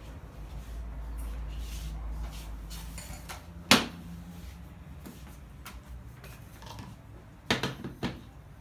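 Knocks of handling on a kitchen worktop: one sharp knock a little before halfway, then three quick knocks near the end, over a low rumble of handling noise.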